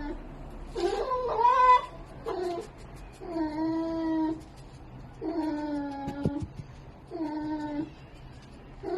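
Red fox giving a run of whining, drawn-out cries in its sleep, about five in a row, each half a second to a second long, the first one wavering and higher.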